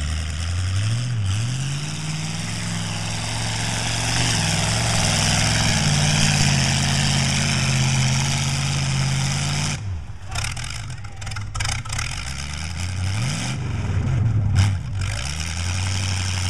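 Lifted 4x4 mud truck's engine revving hard and rising and falling in pitch as it churns through a deep mud pit, with a loud hiss of spinning tires and flying mud. About ten seconds in the revs drop off, then come a few short blips of throttle before it settles to a steadier run.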